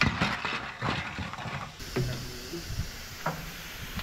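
Loose metal parts clattering and knocking as a truck chassis is dismantled by hand, with a dense rattle in the first second, then scattered knocks and a couple of short scrapes.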